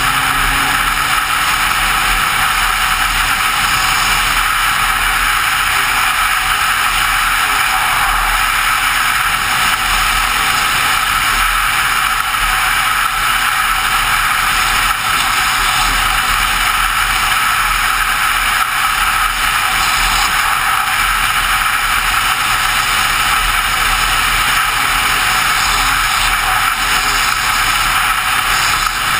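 Steady rush of wind and road noise at riding speed, heard from a camera mounted on top of a motorcyclist's helmet.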